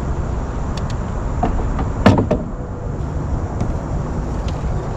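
Steady wind rumble buffeting the microphone, with a few light knocks and a louder thump about two seconds in.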